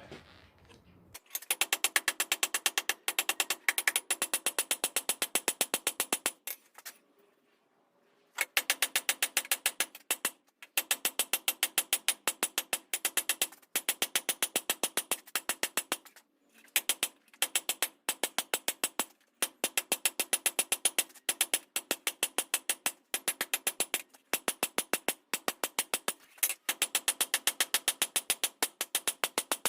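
Hammer blows on hot steel over an anvil, delivered in rapid runs of several strikes a second with short pauses between runs; each blow rings metallically.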